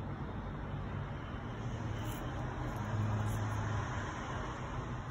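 Diesel locomotive engine running with a steady low drone that swells for about a second, roughly three seconds in.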